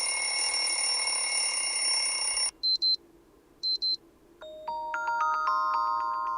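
Xiaomi Mi 10T Pro alarm tones previewed one after another: a steady electronic ringing tone that stops about two and a half seconds in, then two quick double beeps about a second apart, then from about four seconds in a chiming melody of bell-like notes.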